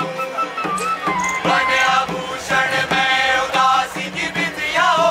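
A chorus of voices chanting a song in unison over a steady low drone, with a few sharp percussive strikes between phrases.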